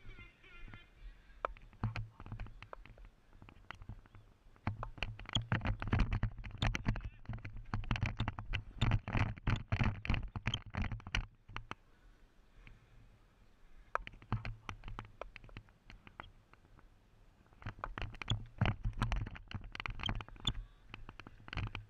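Footsteps and the rustle and knock of cricket kit picked up by a body-worn action camera while the batsman walks. They come in bursts of scuffs and knocks over a low rumble, with a few quieter pauses between.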